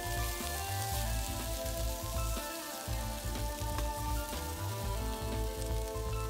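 Chicken pieces sizzling as they brown in olive oil in a skillet over medium-high heat, under background music with held notes and a low bass line.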